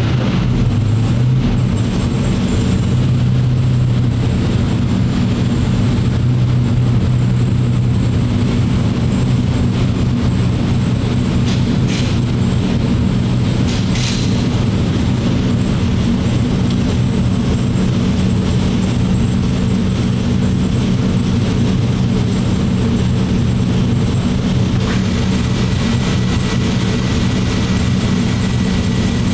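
Twin-turbocharged SML race engine running on an engine dyno at a steady speed, its low rumble holding an even pitch with no sweep in revs.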